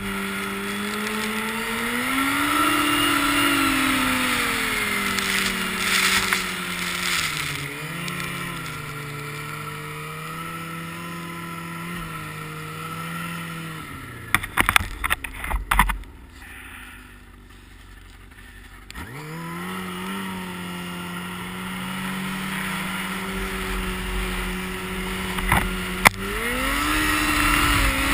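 Yamaha RX-1 snowmobile's four-stroke four-cylinder engine running under way, its pitch rising and falling with the throttle. About halfway through a cluster of sharp knocks comes, then the engine drops off to a low, quieter run for a few seconds before climbing again.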